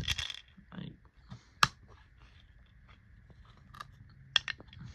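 Scattered small clicks and knocks of 3D-printed plastic engine parts and screws being handled, with one sharp click about a second and a half in and a few quick ones near the end.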